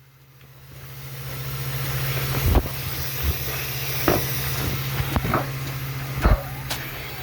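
A vehicle engine running steadily, with several sharp knocks or clunks over it.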